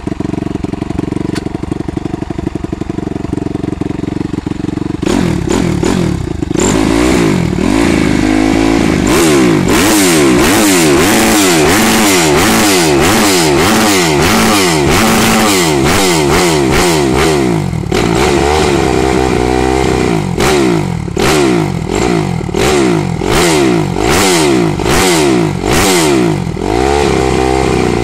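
Suzuki RM-Z250 single-cylinder four-stroke motocross engine, fitted with a Pro Circuit exhaust, idling steadily, then revved over and over from about five seconds in. The throttle blips rise and fall in quick succession, and near the end they come about once a second.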